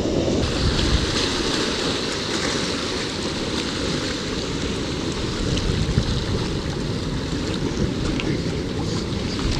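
Ocean surf surging and foaming around rocks: a steady rushing of broken water.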